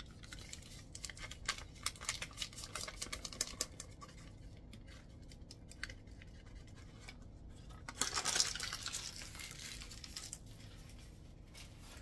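Paper pouches of instant pudding mix crinkling as they are handled and torn open, with a louder tearing rasp about eight seconds in.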